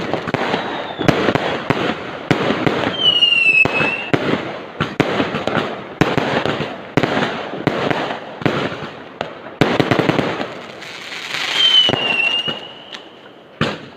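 Fireworks going off in a dense, irregular run of bangs and crackles, with a high falling whistle twice, about three seconds in and again near the end.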